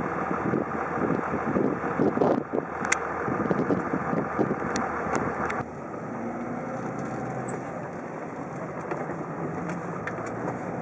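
Truck driving: gusty wind buffeting the microphone over the vehicle noise, then an abrupt change about six seconds in to a steadier, quieter engine and road hum inside the cab.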